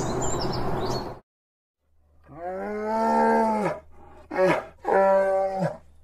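Birds chirping during the first second. Then, after a brief silence, a bear gives three drawn-out calls: a long one, a short one and another long one.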